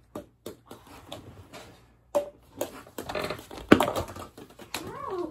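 Small balls bouncing and clattering on a wooden floor and knocking into plastic cups, a series of separate sharp knocks with the loudest a little before the four-second mark as a cup is knocked over. A short rising-and-falling cry near the end.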